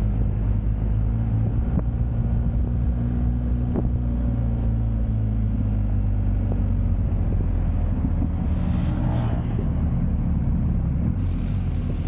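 Motorcycle engine running steadily at cruising speed, heard from on the bike with wind rushing past. A brief louder rush of noise comes about nine seconds in.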